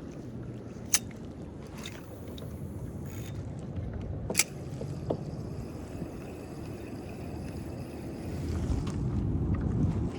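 Low, steady rush of water and wind around a fishing kayak, with two sharp knocks about one and four seconds in. The rush swells near the end.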